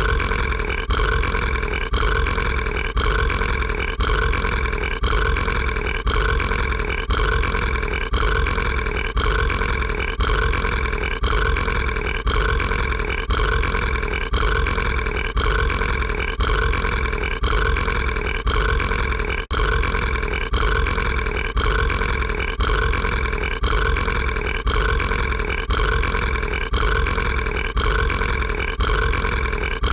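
A cartoon monster's burp, a short sound clip looped end to end so that the same burp repeats evenly about once a second.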